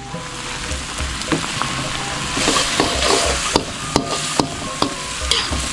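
Chilli spice paste with lemongrass sizzling as it is stir-fried in an aluminium wok, the sizzle growing fuller about two seconds in. A metal spatula scrapes and clicks against the pan several times as it stirs.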